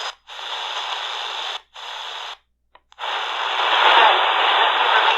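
Shortwave static hiss from a C.Crane Skywave portable radio's speaker, cutting out briefly three times as the radio is tuned from frequency to frequency, then a steady hiss through the second half.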